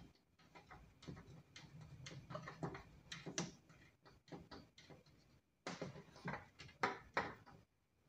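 Hands handling a solar panel's plastic junction box and its cable, making a run of small plastic clicks, knocks and rubbing, loudest about six to seven seconds in.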